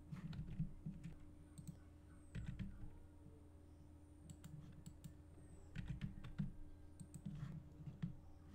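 Scattered computer mouse clicks and keyboard keystrokes at the desk while working in 3D software, over a faint steady low hum.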